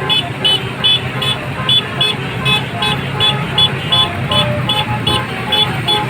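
A bus's Basuri 'telolet' multi-tone air horn playing a quick repeating tune of short notes, about two or three a second, over the bus engine running low underneath.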